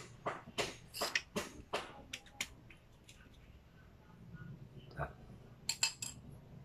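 Light clicks and taps of small metal jack parts and hand tools being handled: a quick run of them over the first couple of seconds, a single click about five seconds in, and a short cluster near the end.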